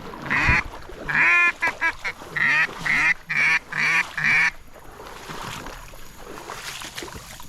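A loud run of about eight duck quacks, the last five evenly spaced about half a second apart.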